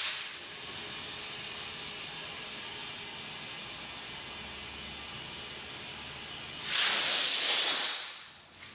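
Compressed air hissing steadily into a tubeless tire through its valve stem, with the valve core out, inflating it on the wheel. About seven seconds in, a louder rush of air lasts about a second and then fades away.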